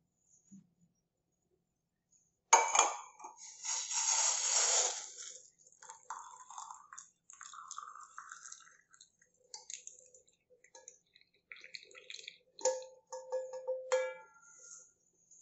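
Brewed black tea poured from a stainless steel saucepan through a wire mesh tea strainer into a ceramic mug. A sharp clink comes about two and a half seconds in. It is followed by splashing as the tea pours and then a softer trickle. Near the end come a few light clinks, the last one ringing.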